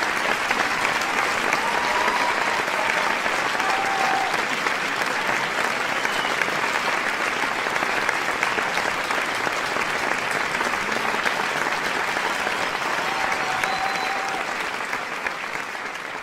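Large crowd applauding in a steady, unbroken stretch of clapping that fades away near the end.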